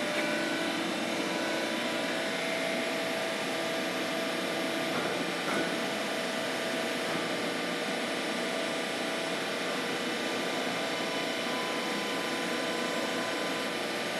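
Four-roll plate bending machine running with no plate in it: a steady mechanical hum with a few faint steady whining tones, even throughout.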